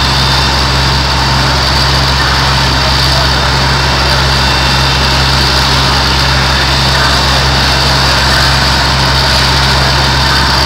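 Fire engine's diesel engine running steadily while driving its water pump: a constant low drone with a steady hiss over it.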